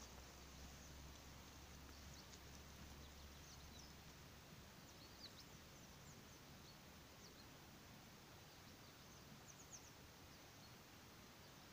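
Near silence: faint outdoor background hiss with a few brief, faint high chirps scattered through it.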